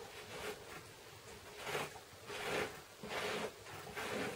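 A flat scraper spreading embossing paste across a stencil on cardstock: faint scraping strokes, four or five of them, each under half a second.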